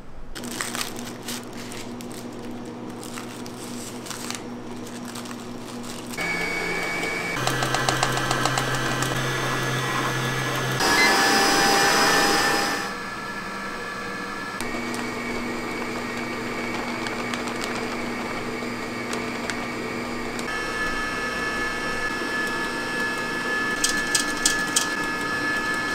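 Electric kitchen mixer motor running steadily, its pitch changing abruptly several times, loudest for about two seconds near the middle.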